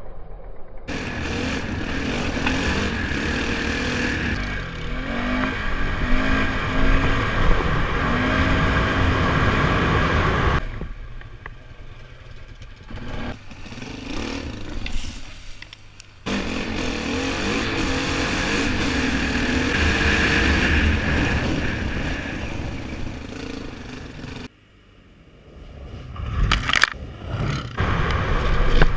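Polaris Sportsman 570 ATV engine running and revving as the quad rides a bumpy dirt trail, with scraping and clatter from the machine over the ground. The sound cuts away abruptly a few times where clips are joined, and there is one sharp thump near the end.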